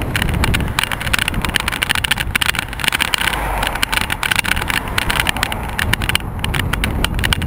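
Bicycle riding over a rough path, with the bike-mounted camera rattling and knocking irregularly several times a second, over a steady low rumble of passing road traffic.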